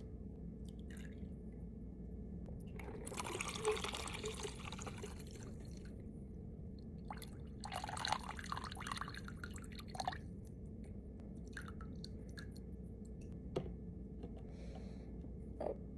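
Liquid pouring in two stretches of about two seconds each, a few seconds apart, over a steady low hum, with a few light clicks. This is most likely expressed breast milk being poured out of the pump's collection containers.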